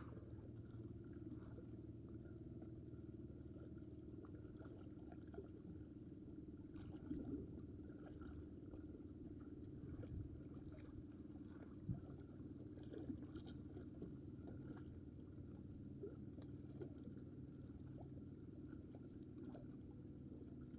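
Faint, muffled steady low rumble with a few soft ticks and taps from hands handling fishing line and bait.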